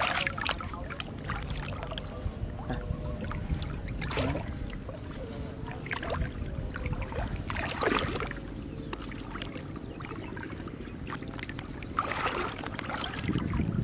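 Hands sloshing and splashing in shallow muddy water while feeling through the mud for fish, with a few louder splashes every couple of seconds, the strongest near the end.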